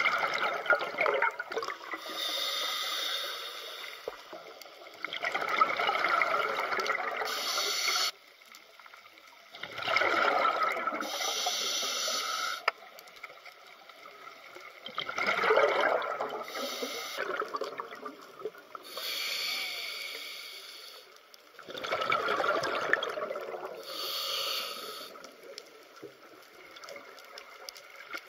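Scuba diver breathing through a regulator underwater: the hiss of each inhale and the bubbling rush of the exhaled air, in a slow, even cycle of breaths about five to six seconds apart.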